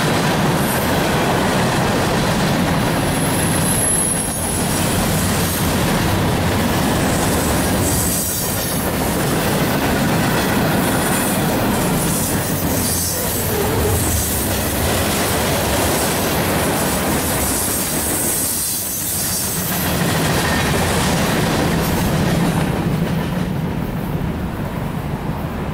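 Freight cars rolling past close by, steel wheels rumbling and clattering on the rail, with a brief high wheel squeal about three seconds in. The sound thins out near the end as the last car goes by.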